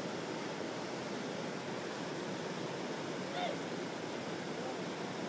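Steady rushing of river water pouring over a low weir and churning in the white water below it. About three and a half seconds in, a brief pitched call sounds once over the water.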